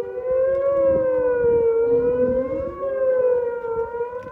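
Outdoor warning sirens wailing, with a loud, steady tone that wavers slowly in pitch. A second, fainter siren's tone dips lower about two seconds in and climbs back up.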